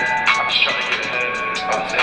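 Rap track playing: a melodic instrumental with sharp percussion hits, the rapper's vocals mixed low beneath the beat.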